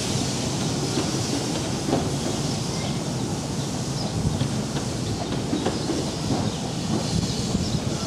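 Train of a 15-inch-gauge miniature steam railway running away down the line, its wheels clattering over the rail joints and points in many irregular knocks.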